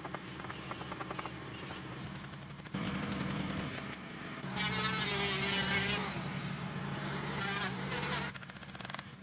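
Power tools running on timber, in short cut-together shots: a steady motor hum, rising to a louder wavering whine about halfway through as an electric hand planer runs along a board.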